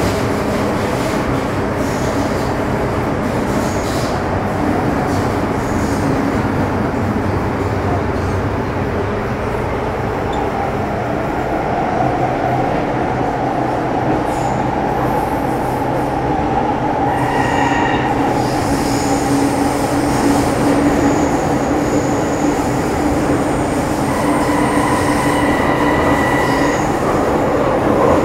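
Metro Cammell M-Train EMU with a GEC GTO chopper drive, heard from inside the car while running between stations: a steady rumble of wheels and traction equipment. Thin high-pitched tones join about two-thirds of the way through.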